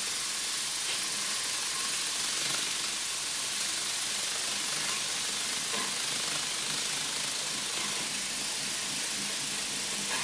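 Live-steam 'UFO' spinner model running at speed: a steady high hiss of steam jetting from the spinning brass saucer.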